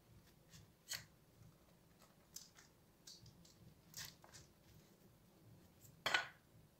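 Crusts of wholemeal sandwich bread being pulled away from rounds cut out of the slices: a few short, crisp rustles and crackles of bread and baking paper, the loudest about six seconds in.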